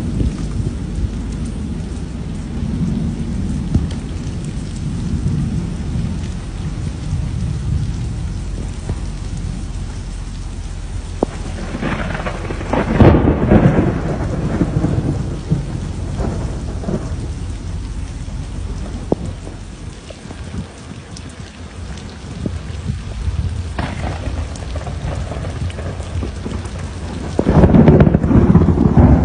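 Thunderstorm: rain falling steadily under low rumbling thunder, with two louder thunder crashes, one about twelve seconds in and one near the end.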